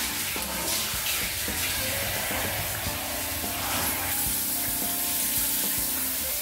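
Handheld shower head spraying water onto a Siberian husky's wet coat: a steady hiss of running water.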